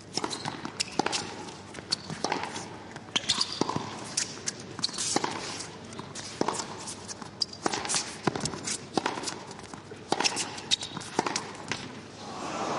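A tennis rally: sharp pops of the ball off racket strings and court bounces, irregular and about a second apart, with players' footsteps shuffling between shots. Near the end the crowd starts applauding.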